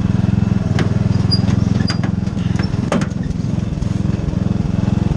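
Riding lawn mower engine running steadily under load while towing a cart over rough ground, with sharp knocks about one and three seconds in as the cart jolts.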